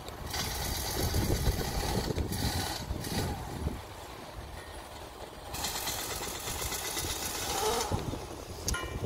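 Wind rumbling on the microphone, with gusts of louder hiss that come and go.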